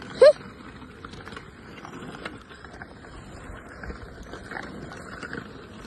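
A brief, loud, high-pitched shriek from a girl's voice about a quarter second in, rising slightly in pitch, then a low outdoor background with faint scattered clicks.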